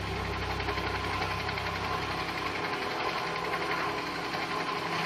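Helicopter in flight, heard from inside the cabin: a steady engine drone with a rapid pulsing, the lowest hum easing off about halfway through.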